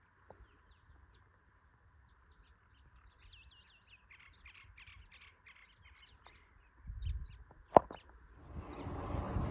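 Wild birds chirping and trilling, a run of short calls between about three and six seconds in, over a faint steady background hiss. A single sharp click comes near the end, followed by low wind rumble on the microphone.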